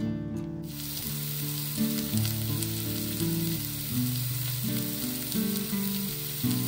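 Sliced white mushrooms frying in oil in a nonstick pan: a steady sizzle that starts about a second in.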